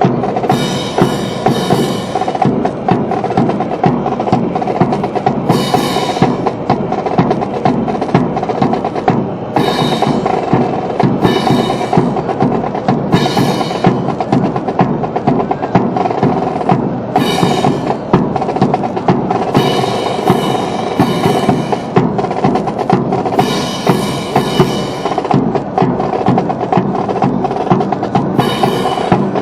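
Marching percussion playing a steady drum cadence, snare and bass drum with rolls and dense sharp strikes, under music.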